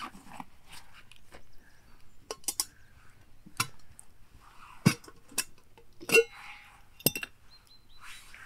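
A handful of separate clinks and knocks of small hard objects, one about six seconds in ringing briefly like metal.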